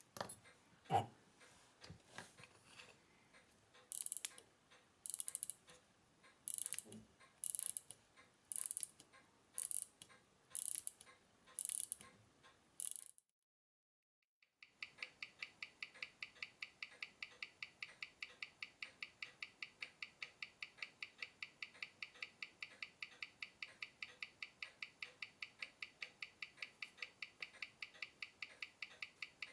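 Unitas 6497 pocket-watch movement being wound, its ratchet clicking in short bursts about once a second. After a brief silence comes its ticking through a timegrapher's speaker: even, sharp ticks at 18,000 beats an hour, five a second, with the display showing zero beat error.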